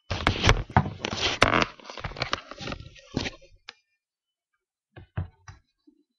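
Hard plastic Fly motocross chest protector clattering and rustling as it is pulled on over the head, with many sharp knocks for the first few seconds, then a few dull knocks about five seconds in.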